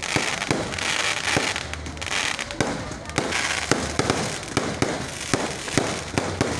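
Fireworks going off in quick succession: sharp bangs at uneven spacing, two or three a second, over a crackling hiss.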